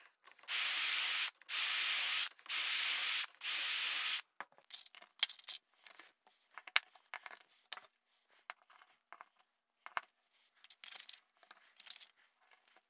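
A drill boring dowel holes into pine through a metal doweling jig, in four short runs of under a second each. After that, scattered light knocks and clicks as the drilled pine legs, rails and dowels are handled and fitted together.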